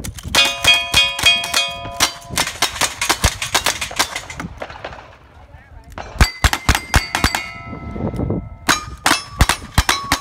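Rapid gunshots from a rifle and revolvers, each hit followed by the ringing clang of a steel target. The shots and rings come in quick runs, with a short lull about five seconds in before another burst.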